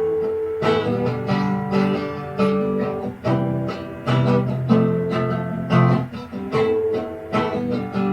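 Acoustic guitar strumming and picking a chord progression, with no singing.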